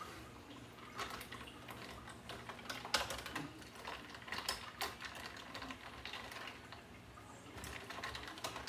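A spoon stirring ice cubes and sliced fruit in a plastic pitcher of water: irregular clinks and clicks, the sharpest about three seconds in.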